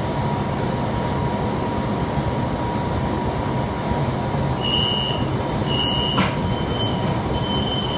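Beijing subway train running and slowing into a station, heard from inside the carriage: a steady rumble, and from about halfway a high squeal that starts and stops several times, with one sharp click shortly after.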